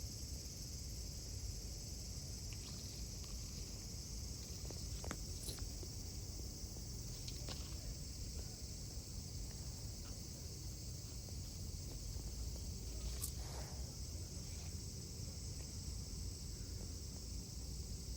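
Steady, unbroken high-pitched insect chorus over a low rumble, with a few faint clicks scattered through, the sharpest about 13 seconds in.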